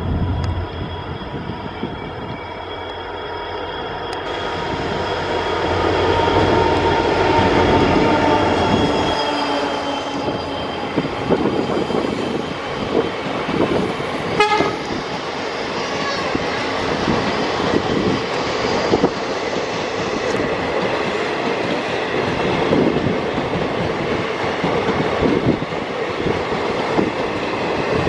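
EMD WDP-4 diesel locomotive running past close by, its engine sound building over the first several seconds, followed by a long rake of passenger coaches rolling by with wheels clattering over the rail joints.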